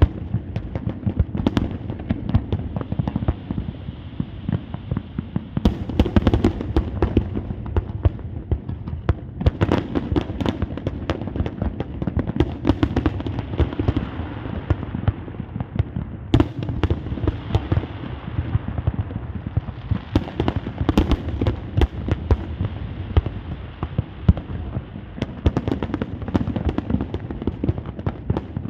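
Fireworks display: a dense, continuous barrage of sharp bangs over a steady low rumble, with heavier clusters of loud bursts every few seconds.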